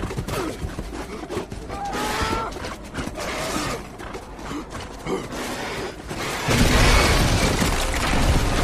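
Film action sound effects: a string of cracking, crashing impacts, with a much louder crash surging in about six and a half seconds in.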